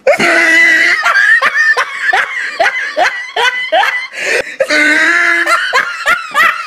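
High-pitched human laughter in a quick run of short rising bursts, several a second, with longer held cries near the start and about five seconds in.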